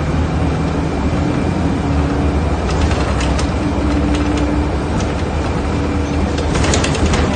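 Steady low rumble of a running vehicle, with short clusters of sharp clicks or rattles about three seconds in and again near the end.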